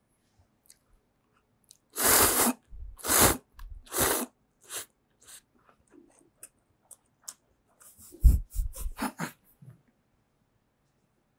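Bibim-myeon noodles slurped loudly three times in quick succession about two seconds in, followed by quieter chewing and mouth clicks close to the microphone. Near the end comes a cluster of low thumps and rustling right at the microphone.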